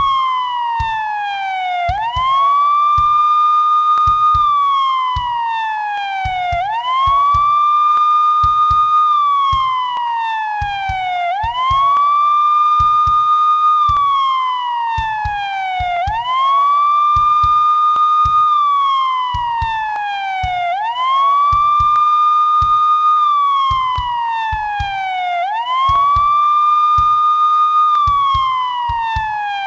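Police siren on a slow wail. Each cycle rises quickly, holds its high note for about two seconds, then slides slowly down, repeating about every four and a half seconds.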